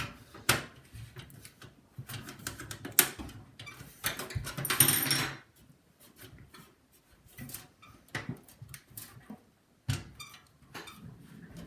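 Irregular clicks, knocks and rustles of plastic and metal computer parts being handled, as a case fan and its cable are worked into a desktop PC case, with a longer scraping rustle about five seconds in.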